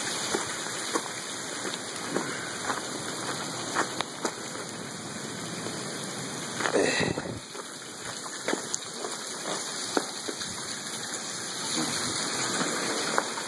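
Hail and rain coming down steadily, a constant hiss with individual hailstones clicking sharply as they strike. A brief louder whoosh comes about halfway through.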